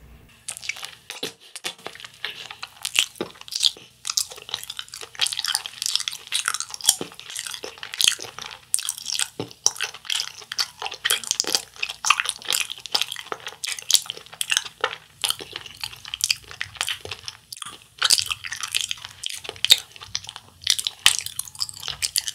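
Close-miked chewing of a persimmon-shaped Japanese wagashi sweet: a dense, irregular run of short mouth clicks and smacks.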